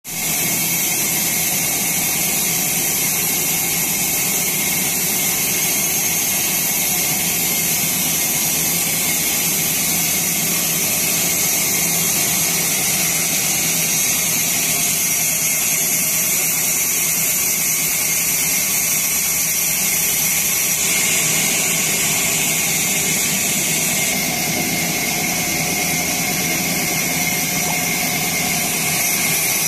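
Sawmill machinery running steadily, with a strong high hiss over a lower hum and no breaks or changes in load.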